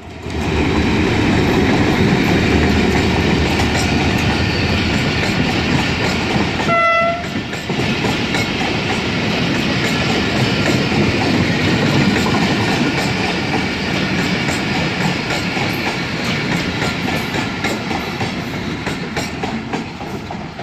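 A Pakistan Railways passenger train runs through the station close by behind an HGMU-30R diesel-electric locomotive: the locomotive goes by, then a long run of coaches rattles and clatters steadily over the rails. A short horn toot sounds about seven seconds in, and the noise eases slightly near the end as the last coaches pass.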